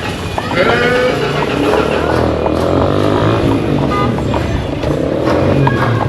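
Busy street sounds: vehicle engines running steadily, with short pitched calls rising over them about half a second in and again near the middle.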